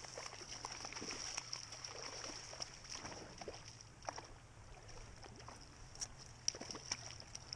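Hooked trout splashing at the water's surface while being played on a fly rod, with scattered small splashes and clicks, several sharper ones near the end. A faint steady high hiss runs underneath.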